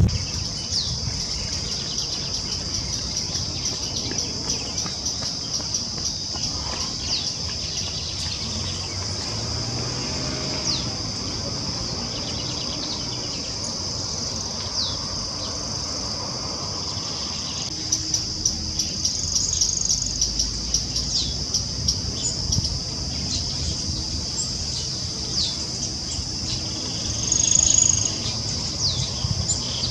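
A steady, high-pitched insect drone, with scattered short, falling bird chirps. From about two-thirds of the way in comes irregular light tapping, a white-barred piculet pecking at dead wood, with a louder run near the end.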